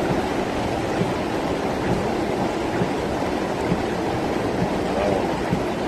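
Rainwater torrent rushing through a flooded street in a cloudburst: a steady, unbroken rush of water.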